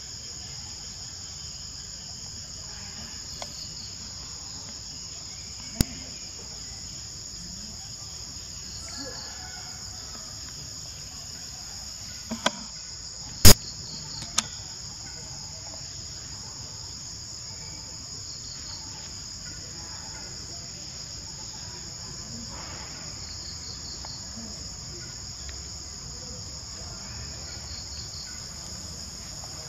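Steady, high-pitched chorus of insects, with a few sharp clicks standing out, the loudest about halfway through.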